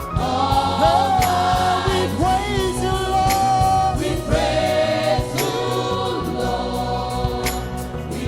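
Live gospel praise music: a group of singers with band accompaniment, a sustained low bass line under the voices and regular percussion hits.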